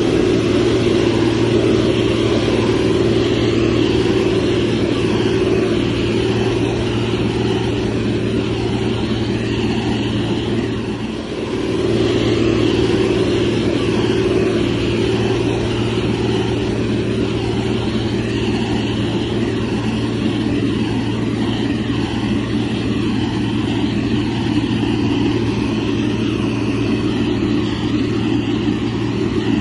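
Heavy diesel engine of a motor grader running steadily at a constant pace, dipping briefly about eleven seconds in.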